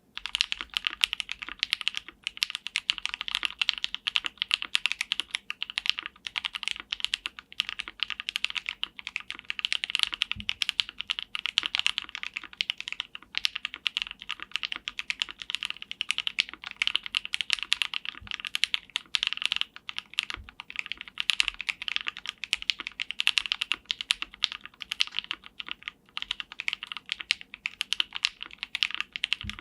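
Mechanical keyboard being typed on continuously for a keycap sound test: a fast, unbroken stream of keystroke clacks with a few deeper knocks mixed in.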